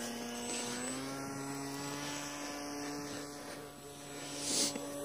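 Radio-controlled model airplane's motor and propeller running in flight, a steady buzzing whine whose pitch rises slightly about a second in. A brief rush of noise comes near the end.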